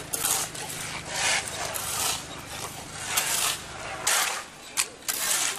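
Metal shovel blades scraping wet mud and grit off a paved road: a series of short, irregular rasping scrapes, roughly one a second, from several shovels working at once.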